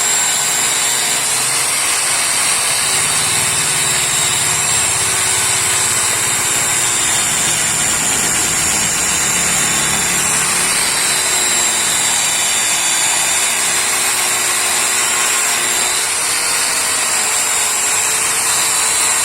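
Electric angle grinder fitted with a wire brush, running steadily as it scours paint off an aluminium motorcycle engine case. It makes a continuous high whine over a dense scratching hiss, and its pitch wavers up and down.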